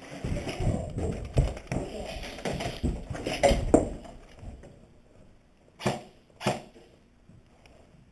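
Irregular clattering, knocks and rustling of handling noise. Then two sharp cracks about half a second apart.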